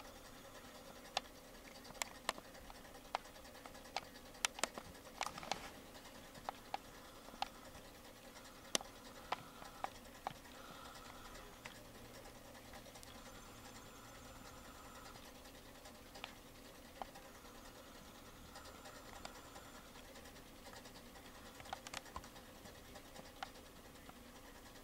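Faint handling noise: light clicks and scratches at irregular intervals, thickest in the first ten seconds and again near the end, over a faint steady electric hum.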